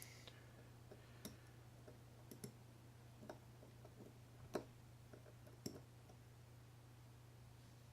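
Faint, scattered light clicks and taps of small metal parts on a Shimano Citica 200D baitcasting reel being handled while the keeper pin and spring are worked out of the handle-side hole. The loudest click comes a little past halfway, over a steady low hum.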